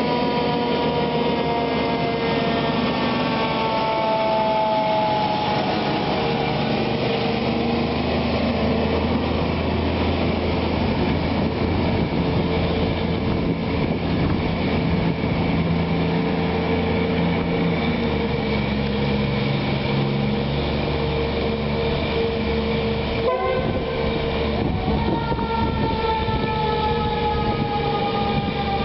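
Wyckoff Fire Engine 223's siren sounding over the truck's running engine as it passes and moves away: long sustained tones sliding slowly down in pitch, with a new tone starting higher again near the end.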